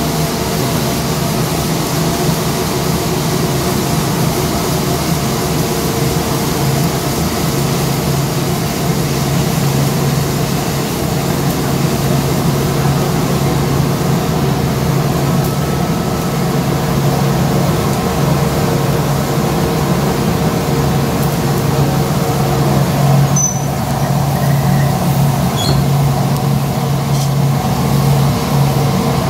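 Industrial 120 kg drum coffee roaster running at full capacity: a loud, steady machine drone with a constant low hum, mixed with the rushing rattle of freshly roasted beans pouring from the drum into the cooling tray and being turned by the stirring arms.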